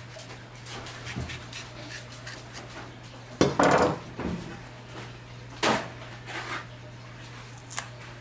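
Kitchen handling noises as a plantain is cut and peeled: scattered light clicks, with two louder scrapes or knocks about three and a half and almost six seconds in, over a steady low hum.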